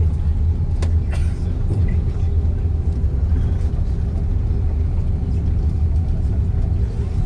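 Steady low rumble inside the cabin of an Airbus A330 rolling along a wet runway after landing. A light click comes just under a second in.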